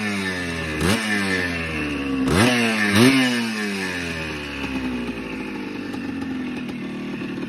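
1980 Yamaha IT175's two-stroke single-cylinder engine revved by three quick throttle blips in the first three seconds, each falling back, then dropping into a steady idle.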